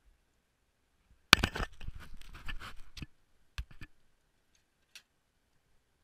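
Handling of a stainless steel pot and hose on a camp stove: a quick run of metal clatters and knocks lasting under two seconds, then a couple of single clicks.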